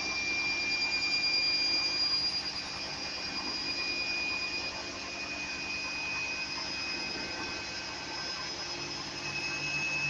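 Ardo front-loading washing machine in its spin cycle: the drum motor runs steadily with a high whine, which steps slightly higher in pitch near the end.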